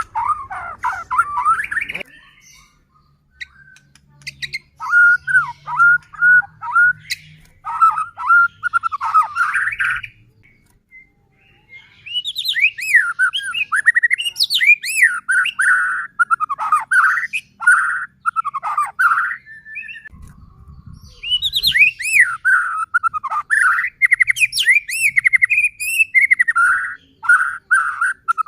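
White-rumped shama (murai batu) singing energetically: fast, varied runs of whistled notes and quickly repeated phrases, broken by pauses of a couple of seconds about two seconds in and about ten seconds in.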